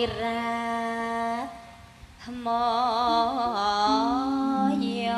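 Female Javanese singer (sindhen) singing a langgam through a microphone: a long held note, a short break about a second and a half in, then a phrase with wide wavering vibrato. Lower steady notes step along beneath her voice in the second half.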